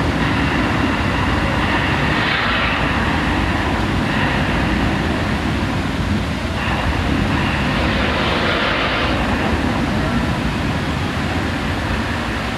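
Deep, loud rumbling of the Mirage's artificial volcano eruption show, with two surges of hissing whoosh as the flame and spray jets burst up: one about two seconds in and a longer one from about six and a half to nine seconds.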